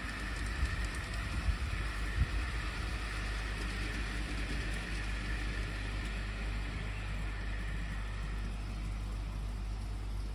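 Miniature ride-on garden railway train running along its track: a steady hiss over a low rumble, with a few light knocks in the first two seconds and the hiss thinning out near the end.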